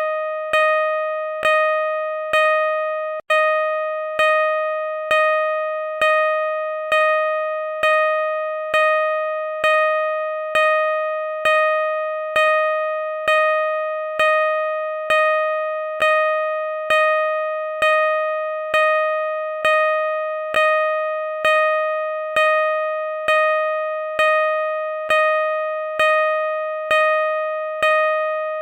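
Car parking sensor beeping: a mid-pitched electronic beep repeating evenly, a little more than once a second, each beep starting sharply and fading until the next.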